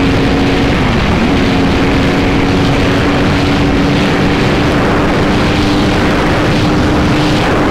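Yamaha R1 sportbike's inline-four engine, fitted with a full Yoshimura exhaust, running at high speed under heavy wind noise. The revs dip briefly about a second in and come straight back, then hold steady until the sound cuts off near the end.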